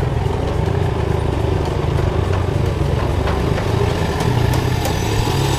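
Motorcycle engine running steadily at low road speed, heard from the rider's seat.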